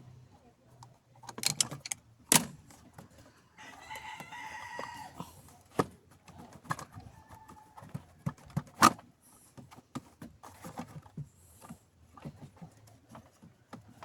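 Scattered clicks and knocks of hand work on a car's power steering reservoir hose, a few of them sharp and loud. About four seconds in, a pitched call lasts about a second and a half.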